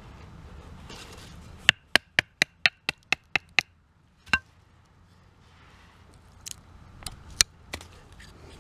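Wooden baton knocking on the spine of a knife blade, driving it down through a stick of chestnut wood to split it. A fast run of sharp knocks comes about four a second, then a single knock, and a few more near the end.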